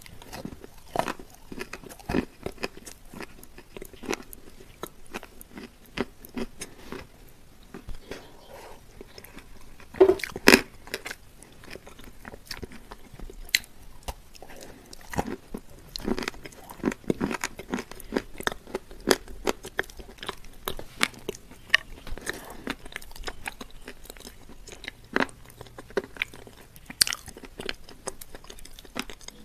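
Close-miked biting and chewing of crumbly shortbread: a dense run of crunches and mouth clicks, with the loudest pair of bites about ten seconds in.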